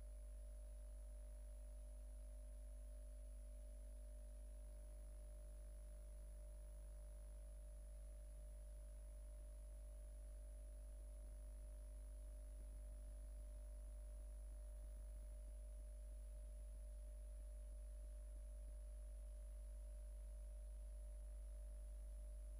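Almost silent track carrying only a steady low electrical hum, with faint steady tones and hiss above it and no change throughout.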